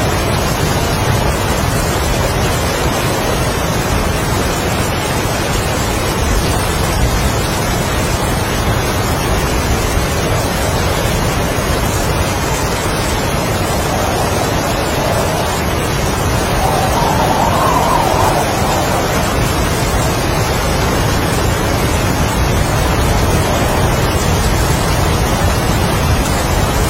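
Heavy rain and strong wind, a loud steady rush with a gust swelling a little over half way through.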